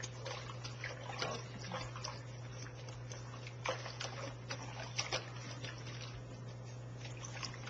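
Water splashing and dripping in a kitchen sink as a wet Shih Tzu puppy shifts about in it, in scattered short splashes, with a steady low hum underneath.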